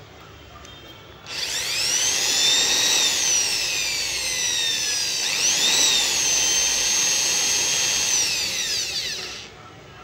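Xtrim corded electric drill's brushed motor starts about a second in and runs with a high whine. The pitch eases down, then rises sharply again as the speed is varied with its newly fitted speed-control trigger switch, holds steady, and winds down to a stop near the end.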